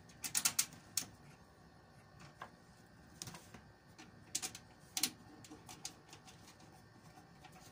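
Scattered light clicks and taps from the parts of a desktop computer case being handled: a quick cluster about half a second in, then single clicks around one, three, four and a half and five seconds in.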